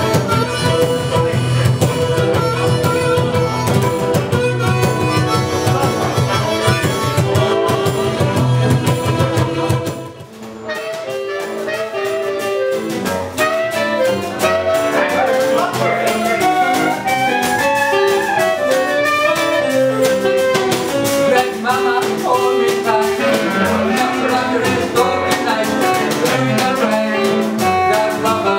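Live acoustic blues band music. Fiddle and acoustic guitar play until an abrupt change about ten seconds in. After that a clarinet leads the melody over guitar and the scraped, ticking rhythm of a washboard.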